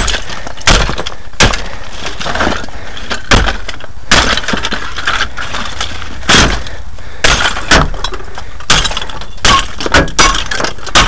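Old television sets being smashed in a steel dumpster: a dozen or so hard, irregular blows, with plastic casings cracking and glass breaking.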